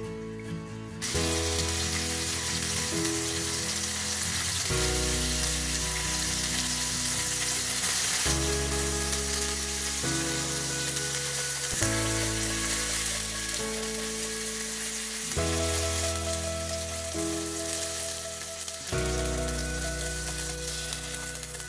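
Food sizzling as it fries in a pan, starting abruptly about a second in, with background music throughout.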